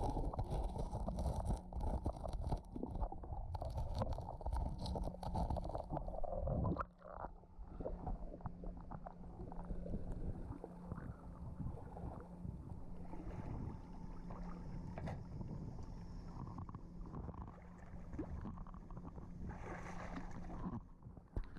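Underwater sound: a loud rumble of moving water for the first six seconds or so, then a steady low drone of a boat engine carrying through the water, with scattered clicks and crackles.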